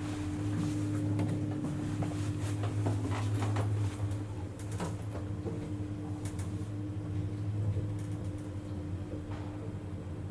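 Machinery of a 1961 Schindler elevator running: a steady electric hum with a constant higher tone, and scattered mechanical clicks and rattles that are busier in the first few seconds.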